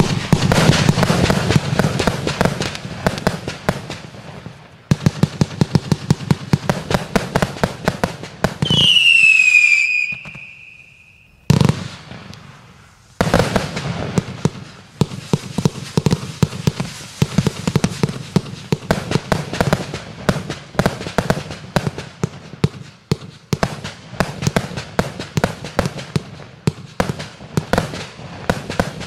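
Watt 'Colour Experiment' firework cake firing a rapid barrage: a dense run of launch shots, burst pops and crackle. About nine seconds in, a falling whistle sounds, followed by a short lull with a single bang. Steady rapid firing then resumes.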